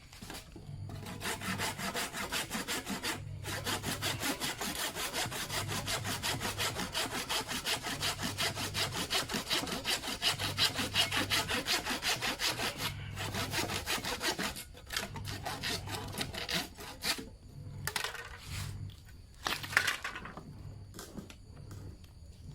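Hand saw cutting through wood in quick, even back-and-forth strokes. The strokes stop about 13 seconds in, followed by a few shorter, quieter bouts of sawing and some sharp knocks.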